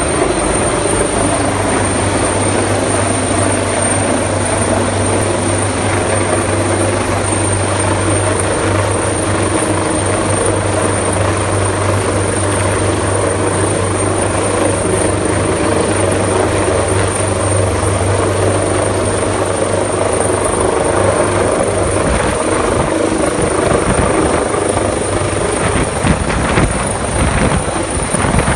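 Search-and-rescue helicopter hovering low overhead, its rotor and engine noise loud and steady. The low drone eases about three-quarters of the way through, leaving a rougher, more uneven rushing noise.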